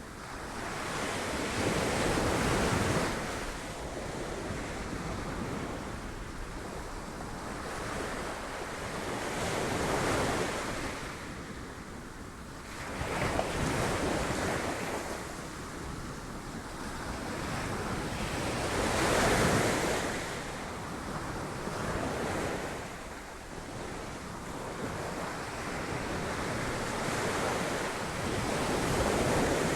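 Sea waves breaking on rocks, a steady wash of surf that swells in a broad surge every five or so seconds, with wind buffeting the microphone.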